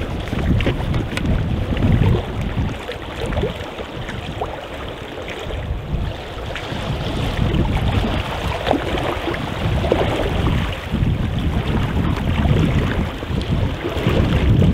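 Wind buffeting the microphone over small sea waves lapping against shoreline rocks, with the splashing of a wader walking through shallow water, louder near the end.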